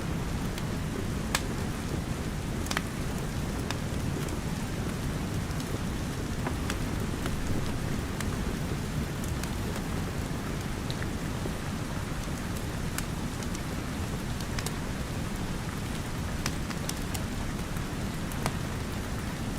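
Steady rain with a low, even rumble, over which a wood fire crackles with scattered sharp pops at irregular intervals.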